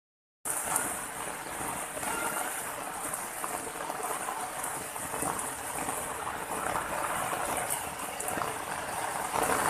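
Water running steadily over a rocky ledge into a pond, an even rushing and trickling, after a brief moment of silence at the very start.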